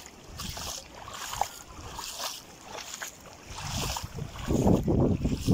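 Gusty wind buffeting the microphone, getting louder near the end.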